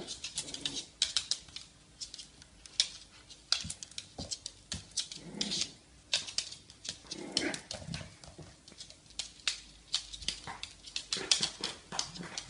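Dogs' claws clicking and skittering on a hard laminate floor as two dogs wrestle in play, with a few short growls about halfway through.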